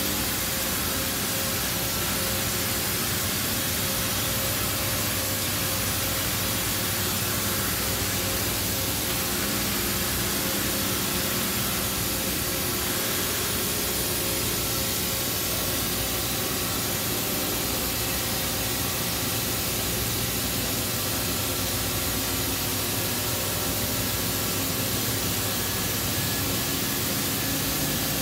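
OKK HM1250S horizontal machining center running under power: a steady hiss with a low hum and a few faint steady tones underneath.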